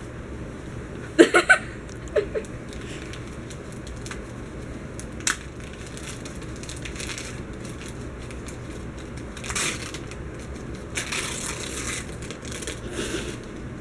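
Wrapping paper crinkling and rustling in several bursts in the second half. Earlier there are a few short, sharp squeaks in a quick run about a second in, two more shortly after, and a single click.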